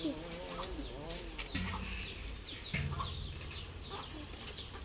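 Chickens clucking, most in the first second or so, with short high bird chirps throughout.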